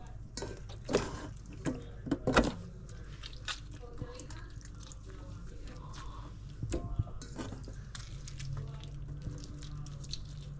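Wet squishing and dripping as hands rub raw oxtail pieces with lime juice in a bowl, in irregular bursts that are loudest in the first two and a half seconds.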